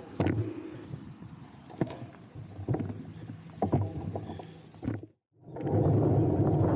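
A few scattered clicks and knocks over a low background. After a brief dropout about five seconds in, a steady rushing noise of a road bicycle being ridden starts and is the loudest sound.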